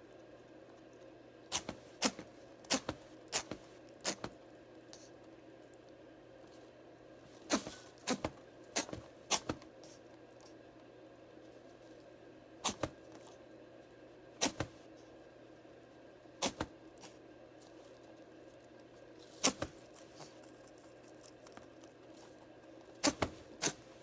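A pet rabbit sneezing repeatedly: short, sharp sneezes, often two or three in quick succession, with pauses of a few seconds between the groups.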